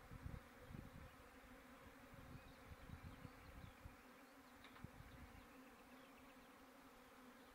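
Faint, steady buzzing of many bees. Irregular low thumps come in the first half and fade out after about five seconds.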